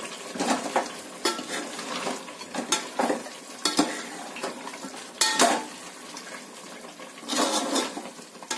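Perforated steel spoon stirring thick korma masala in a metal pot, with irregular scrapes and knocks of metal on metal.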